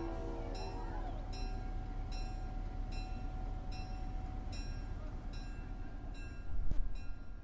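Train rumbling steadily, with a bell striking at a regular beat of about one ring every three-quarters of a second. A louder low surge of rumble comes near the end, then the sound fades away.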